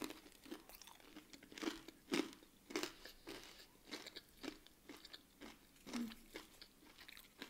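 A person chewing a mouthful of breaded chicken strip, the crisp coating crunching about twice a second.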